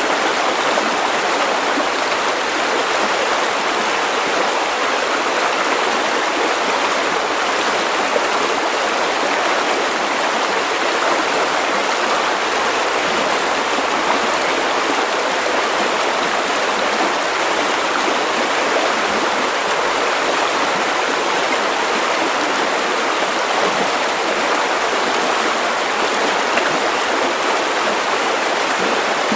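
River water running over stones, a steady, even rushing babble that never lets up.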